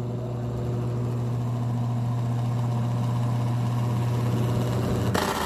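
Arno 40 cm desk fan's motor giving a steady loud hum with a rough rattle while it struggles to turn and runs far too slowly. The fault behind it is worn motor bushings, which the repairer finds on taking the fan apart; he first suspects a loose blade. The hum stops a little after five seconds in, followed by a brief burst of noise.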